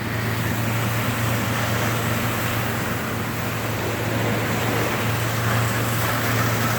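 Heavy demolition machinery's diesel engine running steadily: a constant low hum under a broad rushing noise.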